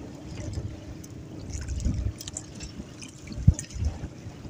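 Water sloshing and trickling against the hull of a small outrigger boat on choppy sea, over a low rumble. A single sharp knock comes about three and a half seconds in.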